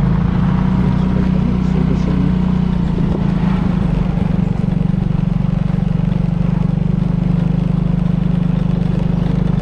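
Motorcycle engine running at a steady, even pitch while riding along at low speed.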